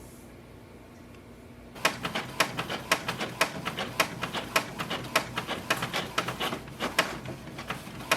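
Canon Pixma G6020 inkjet printer starting a print job: about two seconds in, a rapid, uneven run of mechanical clicks and clacks begins as it feeds the paper and prints, and continues to the end.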